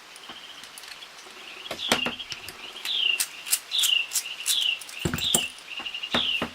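Songbird singing: a run of short notes, each sliding downward, repeated about twice a second with a rapid trill between them. A few sharp clicks cut in, the loudest near two seconds in and again near the end.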